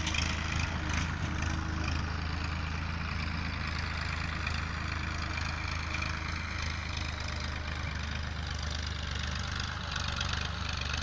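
Tractor engine running steadily at a constant speed, a low even hum, as the tractor tills the field.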